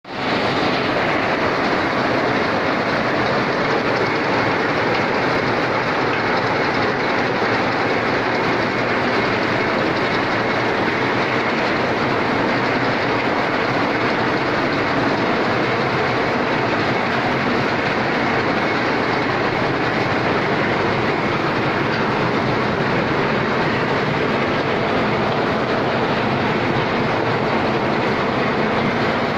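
Processing machine running steadily, its rollers and conveyor giving a loud, continuous, dense clatter of many small impacts as the kernels pass through it.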